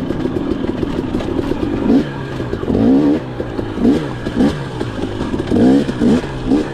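Off-road motorcycle engine revving in short repeated blips, its pitch climbing and dropping back several times after about two seconds of steadier running.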